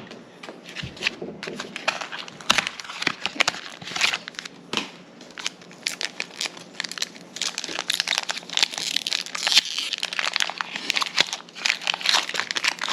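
Foil wrapper of a Pokémon booster pack crinkling and tearing as it is opened: a rapid run of sharp crackles that grows busier in the second half.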